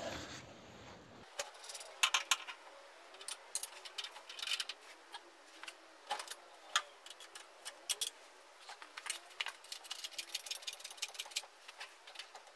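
Faint, irregular metallic clicks and clinks as a steel pry bar levers a Ford flathead engine, hanging on an engine hoist's chains, sideways into line with its engine mounts.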